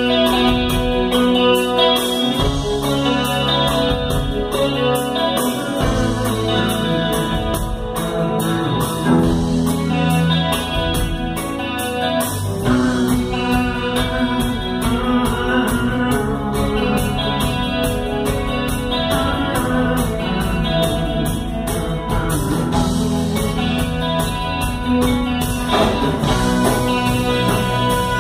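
A live rock band playing a song, with electric guitars, electric bass, drums and saxophone. The low end fills out about twelve seconds in as the full band comes in.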